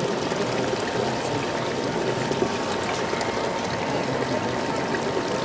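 Steady running water with no breaks, faintly overlaid by a steady tone.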